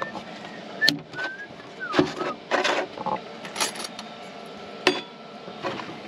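Handling noise from a collapsible silicone bowl and metal spoon being taken out and set down on a stainless-steel camp-kitchen bench: several sharp clinks and knocks with rustling between them. A few short, high whistled chirps sound in the first couple of seconds.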